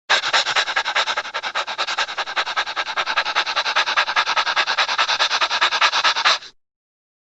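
Rapid, even rubbing or scraping strokes, about ten a second, cutting off suddenly after about six and a half seconds.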